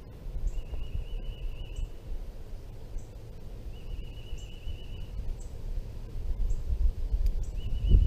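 Outdoor ambience with a low rumble of wind on the microphone, and a bird trilling in the background three times, each trill a little over a second long, with short high chips in between. Scattered sharp clicks come from the male northern cardinal cracking seeds on the feeder right by the microphone.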